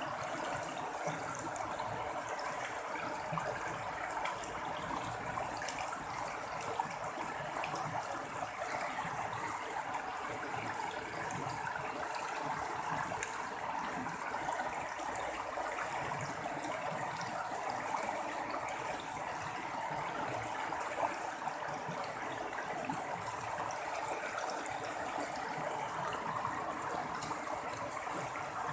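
Running water splashing and babbling in a steady, unbroken stream.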